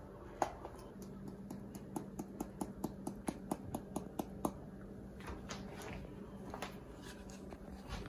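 Small spice jar of pumpkin pie spice being shaken and tapped over a mug, giving a quick run of light clicks about three or four a second for a few seconds, then a few softer ones.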